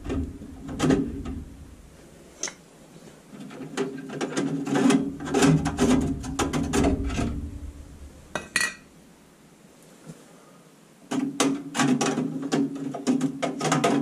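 Tool and metal clicking and rattling inside a gas furnace's burner compartment during a swap of its rusty burners for stainless steel ones. It comes in two busy stretches of rapid clicks, with a single sharp clink between them.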